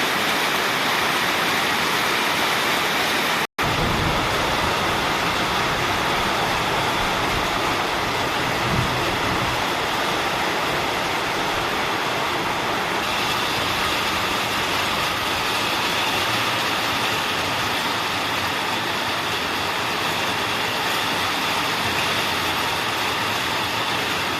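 Heavy rain pouring down in a thunderstorm: a steady, loud hiss of rain, broken by a split-second dropout about three and a half seconds in.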